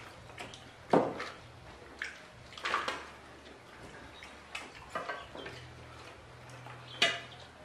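Scattered clinks and knocks of china plates, bowls and glasses as people eat by hand at a table, the sharpest about a second in and near the end, over a faint steady low hum.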